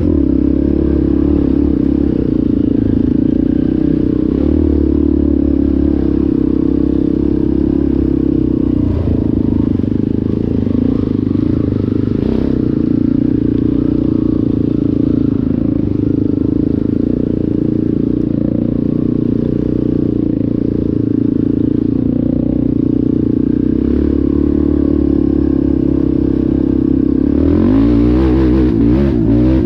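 ATV engine running steadily under way. Near the end its pitch wavers up and down as the revs change.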